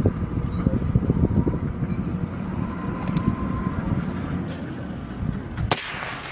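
Low, steady engine rumble of a vehicle running, with wind buffeting the microphone, and a short, sharp burst of noise near the end.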